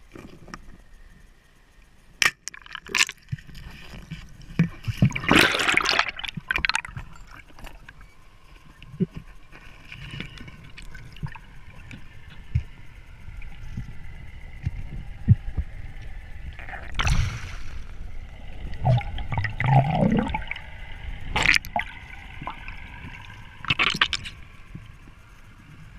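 Water gurgling and rushing as picked up by an underwater camera, with irregular splashy surges and sharp knocks scattered through.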